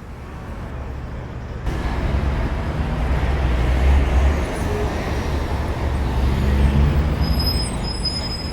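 Street traffic with heavy vehicles passing: a low engine rumble that swells twice, with a thin high squeal near the end.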